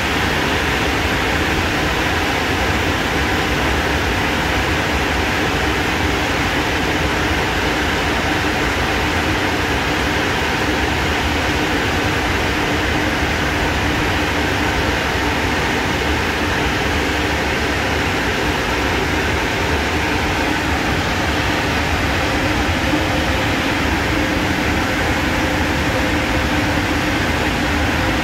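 Automatic gantry car wash machine running steadily over a car: a constant loud mechanical whir with a faint low hum underneath.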